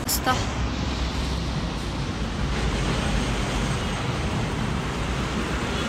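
Steady road traffic noise, an even hiss with a low rumble.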